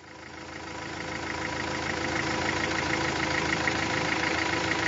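Truck diesel engine idling steadily with a fast, even pulse. It fades in from silence over the first couple of seconds.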